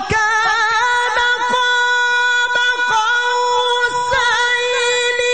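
A male Qur'an reciter's high voice holds one long, melodious note of tilawah, a single drawn-out vowel with small wavering ornaments and a brief turn about four seconds in.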